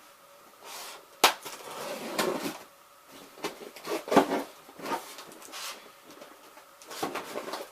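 Box packaging being opened and handled by hand: scattered rustles and sharp taps and knocks. The loudest are a crisp click about a second in and a knock about four seconds in.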